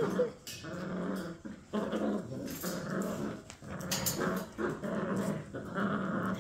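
Puppies growling in play as they tug at a toy together, a run of short growls one after another.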